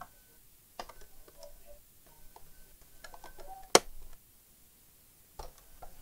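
Plastic housing of an all-in-one computer being handled and shifted on a workbench: scattered light clicks and knocks, with one sharp, much louder click a little past halfway.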